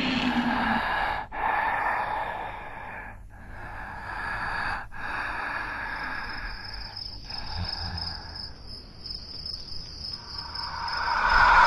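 Crickets chirping in a night-time ambience, with a steady high chirring from about four seconds in. The sound drops out for an instant a few times.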